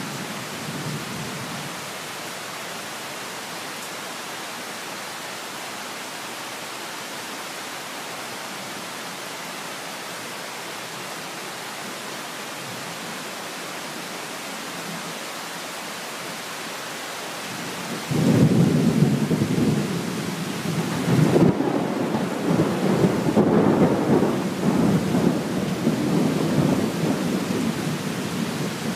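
Steady tropical rain, then about two-thirds of the way through a loud clap of thunder breaks in suddenly and rolls on, swelling and fading.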